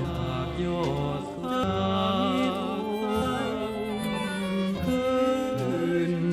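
Music with bowed strings: low held notes that change every second or so under a wavering, higher melody line.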